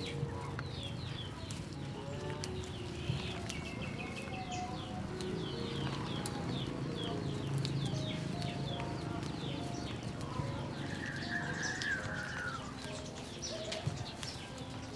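Birds chirping and calling over and over, many short quick chirps, with a steady low background noise underneath.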